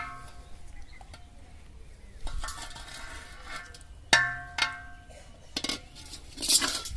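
A metal pot holding water and live fish clanks when knocked: about five sharp strikes, each ringing briefly at the same few pitches, with two bursts of splashing water in between.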